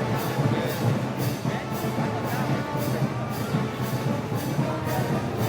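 A festival band of brass and percussion playing a parade march, with cymbal strokes marking a steady beat about two and a half times a second.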